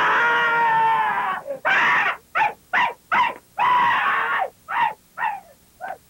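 A person's long scream, falling in pitch, then a string of short, high yelps, one longer cry among them.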